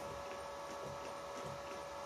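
Steady machine hum with a few faint ticks as a tap cuts a thread into a hole in a small steel part in a milling machine.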